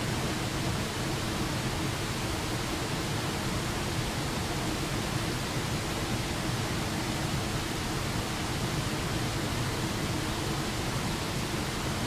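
A small waterfall spilling over a rock ledge into a rocky creek: a steady, even rush of water.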